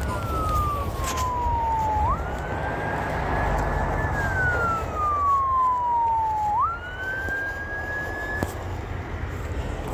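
Emergency vehicle siren wailing: a slow falling sweep, then a quick jump back up and a slow climb, twice over, cutting off near the end, over a low rumble.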